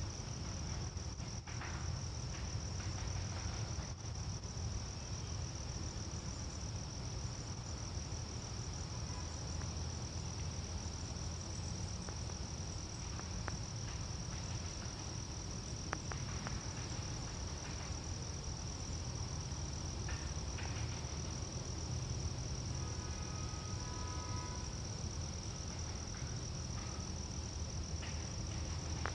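Crickets trilling steadily at a high, even pitch, over a low steady rumble.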